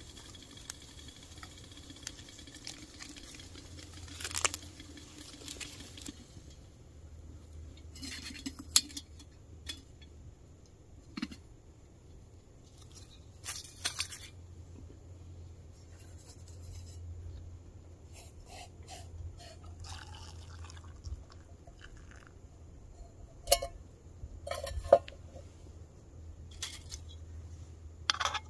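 Metal camp pot, lid and mug being handled: scattered clinks and knocks, with a paper tea packet crinkling near the start.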